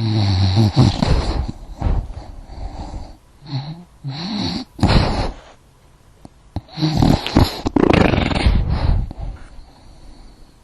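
A dog vocalizing in three noisy bouts, the middle one with short rising and falling pitch slides.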